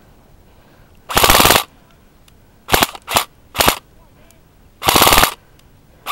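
Airsoft gun shots fired close by: a short burst of rapid shots about a second in, three single shots, then another short burst near the end.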